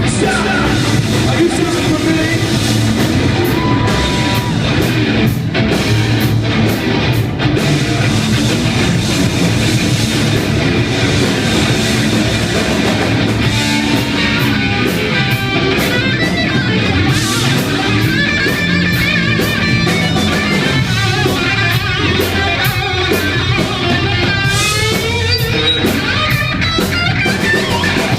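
Live heavy rock band playing: distorted electric guitars with bending lead lines over a drum kit, loud and steady.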